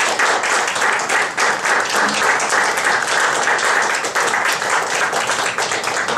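A room of people applauding steadily, dense clapping that begins to die away just at the end.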